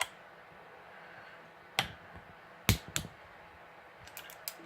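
A few separate sharp clicks and taps from tools on the bike's bolts as they are checked for tightness, with a quick cluster of small clicks near the end.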